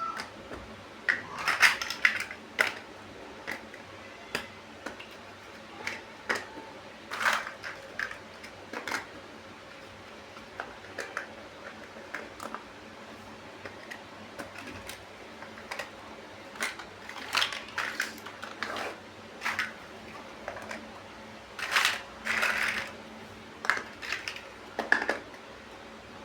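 Plastic LEGO bricks being handled and pressed together: irregular clicks and small clattering rattles, with the loudest clusters a couple of seconds in and again near the end.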